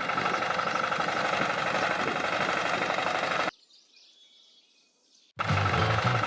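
A small motor runs steadily with a constant whine, cuts off after about three and a half seconds, and starts up again near the end.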